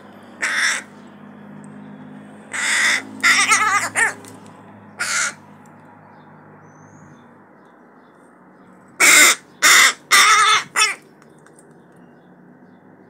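Young hooded crow cawing: harsh, loud calls, about five spread through the first few seconds, then after a pause a run of four in quick succession.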